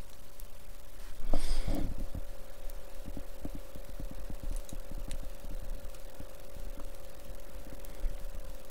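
Handling noise from fingers turning and pressing the rotary encoder of a small hand-held USB device. There is a short rustling brush about a second in, then a long run of soft low knocks, over a faint steady tone.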